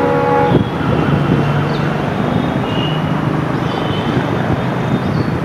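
WDP4 diesel locomotive's EMD 16-cylinder two-stroke engine running steadily as it approaches hauling a train, with a brief chord-like horn blast at the very start.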